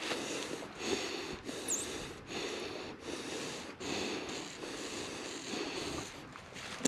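A hiker breathing hard in a steady rhythm while climbing, with footsteps on the trail.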